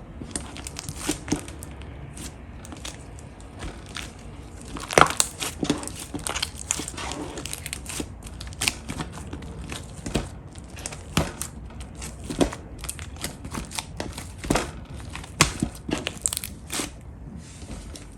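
Slime being squished and pressed by hand, giving irregular sticky pops and crackles, a few louder pops among many small ones.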